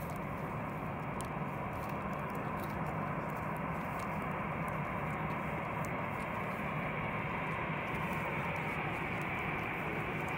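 Turbofan engines of a twin-engine narrowbody jetliner at taxi idle: a steady jet engine noise that grows a little louder as the aircraft taxis closer.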